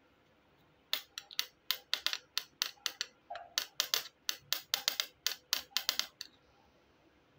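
A quick, irregular run of sharp clicks and taps of small hard plastic toy pieces, roughly four a second, starting about a second in and stopping about six seconds in.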